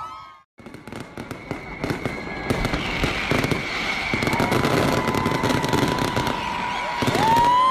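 New Year fireworks crackling with many rapid pops, starting after a brief break about half a second in. A long held tone sounds over them from about halfway and gets louder and rises slightly near the end.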